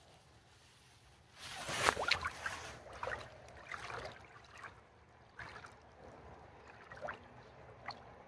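A pike splashes as it is slipped back into the water and kicks away, loudest about two seconds in, followed by a series of smaller splashes and trickles of water.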